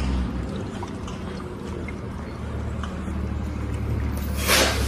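Bus engine idling with a steady low rumble; near the end a loud, short hiss of released air, like an air-brake or pneumatic release.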